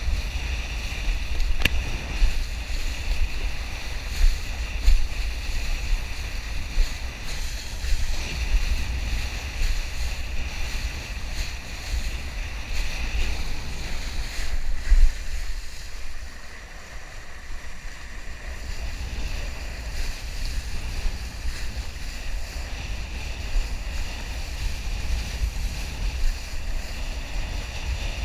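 Wind rumbling on an action camera's microphone while kitesurfing, over the hiss of the kiteboard skimming across choppy water, with a single sharp click a little under two seconds in. The rush eases for a couple of seconds past the middle.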